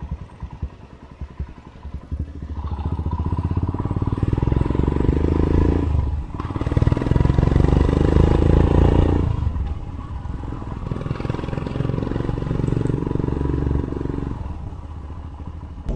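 Royal Enfield Himalayan's single-cylinder engine idling with an even beat as it warms after a cold start, then revving up and running loudly. There are two brief dips in sound, about six and nine and a half seconds in, before it settles to a steadier, lower run.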